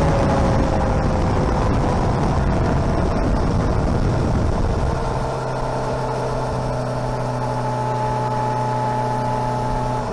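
Engine running fast and slowly dropping in pitch, then settling into a steady idle about five seconds in.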